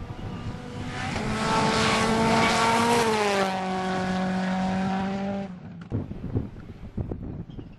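Rally car engine at high revs as the car passes close by. Its note drops in pitch about three seconds in as it goes past, then cuts off abruptly about five and a half seconds in.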